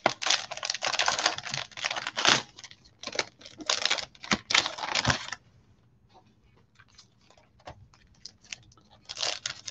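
Wrapper of a Mosaic football card pack crinkling and crackling as it is opened by hand. Then, about five seconds in, quieter scattered light clicks of the cards being handled, with the crinkling returning near the end.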